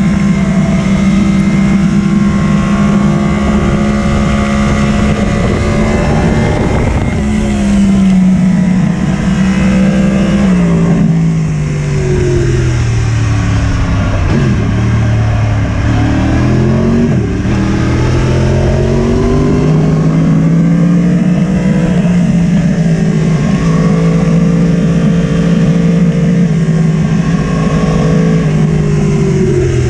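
Yamaha sport motorcycle's engine heard onboard, held at steady high revs, then falling in steps through the middle as the rider brakes and shifts down, with a couple of brief blips. It pulls back up and holds steady again before the revs drop near the end.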